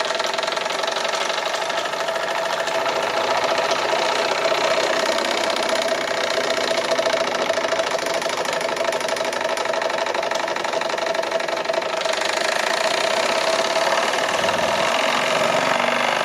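Jensen #25 toy steam engine running fast under steam from its electric boiler: a rapid, even chuffing clatter that holds steady throughout.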